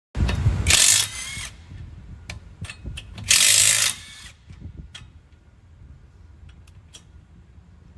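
Cordless impact wrench run in two short bursts, the first about half a second in and the second about three seconds in, with clicks of handling between and after them.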